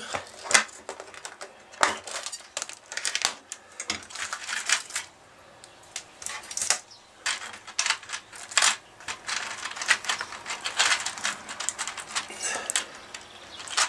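Clear plastic organizer box of Dupont connectors being opened and rummaged through: irregular plastic clicks and rattles as the lid and the small parts in its compartments are handled.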